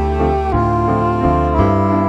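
Instrumental background music: a melody moving over sustained bass notes.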